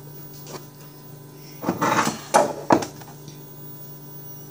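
Things handled on a kitchen counter: a short clatter about two seconds in, then two sharp knocks, over a steady low hum.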